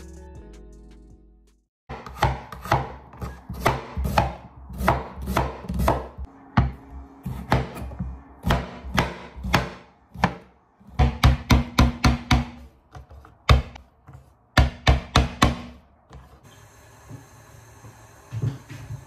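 Chef's knife chopping red onion and tomato on a wooden chopping board: a run of sharp knocks a few a second, with quicker bursts of strokes later on, stopping about three-quarters of the way through. Guitar music fades out in the first two seconds.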